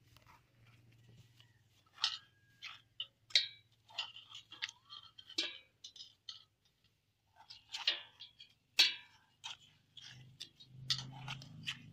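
Steel spoon scraping the soft flesh out of watermelon rind halves: irregular wet scrapes and crunches, some sharp, with short pauses between strokes.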